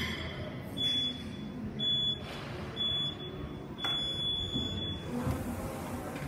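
Gym wall-mounted interval timer's countdown: three short high beeps a second apart, then one longer beep marking the start of the workout.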